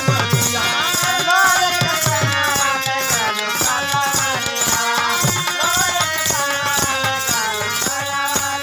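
Live Bhojpuri devotional folk music: a melody over a steady rattle-like beat with hand drums.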